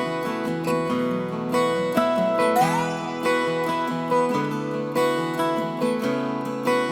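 Background music on acoustic guitar: plucked notes and chords with a short upward slide near the middle.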